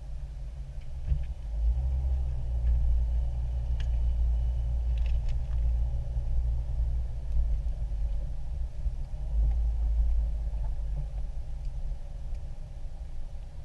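Low, steady rumble of an off-road 4x4's engine and drivetrain heard from inside the cab as it drives along a trail, with a few faint clicks about four and five seconds in.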